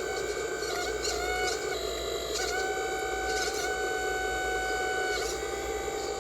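Electric motor whine of a radio-controlled construction model, a steady hum of several high tones that steps slightly up and down in pitch, with a few brief clicks.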